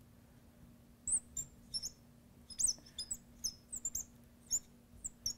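Marker writing on a glass lightboard: short, high squeaks and light ticks of the tip on the glass as words are written, starting about a second in.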